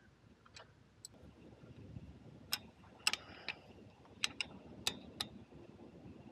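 A string of sharp, irregular metal clicks and clinks, about nine in all, from a hand tool working on the Harley-Davidson Sportster's foot-control mount.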